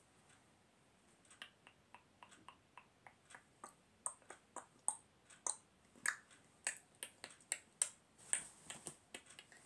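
Irregular run of light clicks or taps, about two to three a second, some sharper than others.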